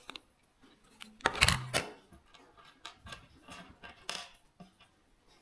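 Hard plastic parts being handled: an action-camera mount set against a helmet shell, making scattered light clicks and knocks, with a louder clatter about a second and a half in and another near four seconds.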